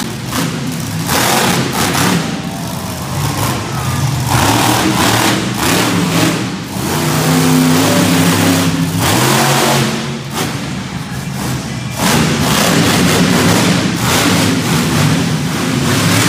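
Monster truck engine running hard, revving up and easing off in waves, loudest through the middle and again over the last few seconds.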